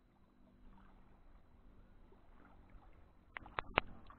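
Faint ambience of shallow water, then a quick run of three or four sharp clicks about three and a half seconds in.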